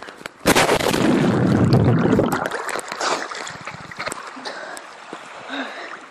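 Swimming-pool water splashing loudly close to the microphone, starting suddenly about half a second in, then settling into lighter splashing after about two seconds as the person enters the pool.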